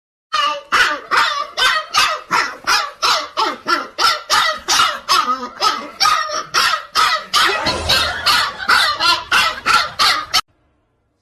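A dog barking rapidly and without pause, about three barks a second, cutting off abruptly near the end.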